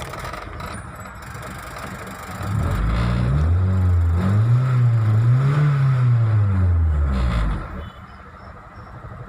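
Honda Civic petrol engine idling, then revved up in two swells and let fall back to idle, with the cut MAP sensor signal wire behind its misfire now repaired and the fault code cleared.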